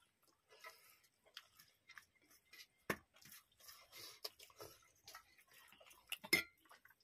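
Quiet eating by hand from stainless steel plates: soft chewing and mouth sounds with scattered light clicks of fingers and rice against the steel. A sharper clink near three seconds in and the loudest one about six seconds in.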